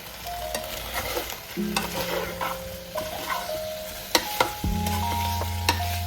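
Food sizzling as it fries in a pan while being stirred, the utensil knocking sharply against the pan a few times.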